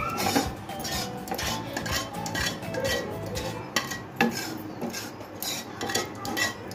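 A spoon repeatedly clinking and scraping against a dish while sauce-covered pasta is spread out, with sharp knocks of utensil on cookware about four seconds in.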